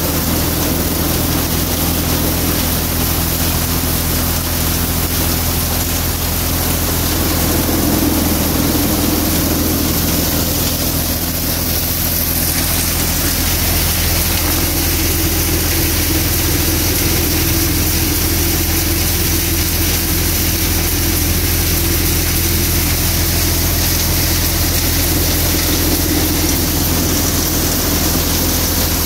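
Balwan Hadamba thresher running steadily while it threshes pigeon pea (tur): a constant machine drone with a low hum and no breaks.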